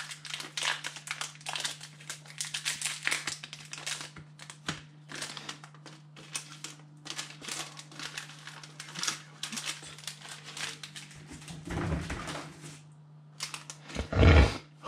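Foil wrapper of a Pokémon TCG booster pack crinkling and crackling as it is handled and torn open. Two dull knocks come near the end, the second and louder one just before it ends, over a faint steady low hum.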